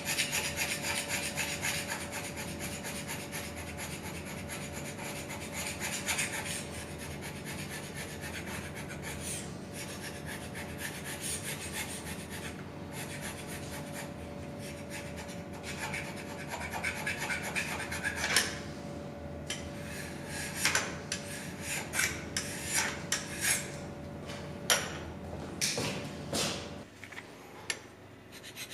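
Scraping of cast-iron machine slideways, a continuous scratchy rasp of metal on metal with sharper individual strokes in the second half. Under it is a steady hum that cuts off a little before the end.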